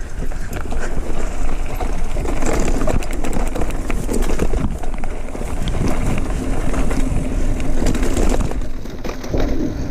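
Mountain bike riding down a dirt trail: wind rushing over the helmet-camera microphone, with tyres crunching and the bike rattling over rough ground in many small clicks.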